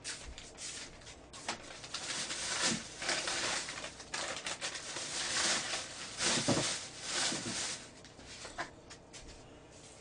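Paper takeout bag rustling and crinkling in irregular bursts as food is taken out of it.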